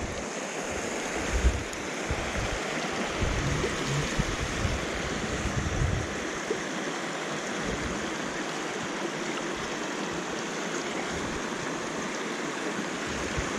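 Small moorland stream running over rocks: a steady rush of water. Low irregular bumps on the microphone through the first half.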